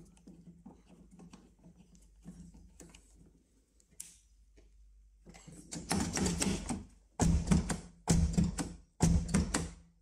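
Nissan Qashqai J10's refitted exterior door handle being pulled open and let go again and again, about once a second in the second half, its latch mechanism rattling and clacking with each pull. Before that come only faint light clicks of handling at the door.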